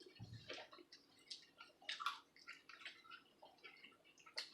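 Faint, irregular chewing and mouth clicks from people eating boneless fried chicken dipped in nacho cheese sauce.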